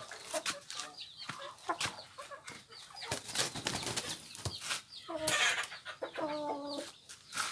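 Chickens clucking, with short bursts of wing flapping and scuffling. A longer pitched call comes about five and a half seconds in.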